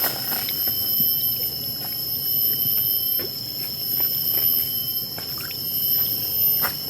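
River water flowing over rocks: a steady rush with small scattered splashes and drips, under a constant high-pitched ringing.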